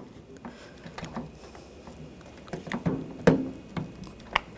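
Scattered light clicks and taps of a new exterior car door handle and its gasket being worked into place in the door, the sharpest click about three seconds in.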